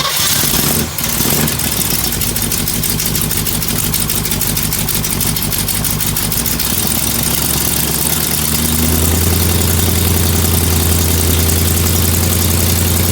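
Freshly rebuilt Chevrolet 454 big-block V8 running on its first fire after the rebuild. It stumbles briefly about a second in, then runs on, and about eight seconds in its low drone grows louder and steadier.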